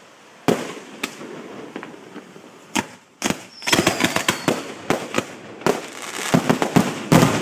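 Fireworks display going off close by: a few separate bangs in the first three seconds, then from about halfway a dense run of crackling reports that grows louder toward the end, with a short falling whistle in the middle of it.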